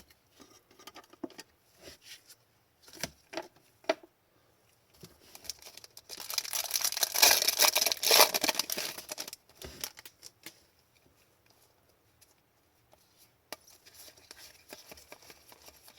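Trading-card pack wrapper crinkling loudly for several seconds as it is torn open, with light clicks and rustles of cards being handled before and after.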